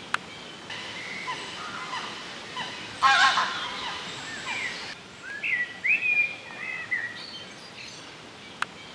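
Wild birds singing and chirping around a lake, short whistled phrases over a steady outdoor hiss. The loudest sound is a brief harsh burst about three seconds in, and there are two sharp clicks, one just after the start and one near the end.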